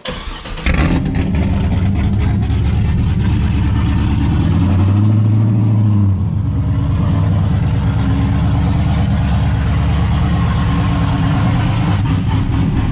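Modified V8 car engine running hard at high, fairly steady revs, its pitch rising briefly about five seconds in. The car is struggling to get moving in the snow.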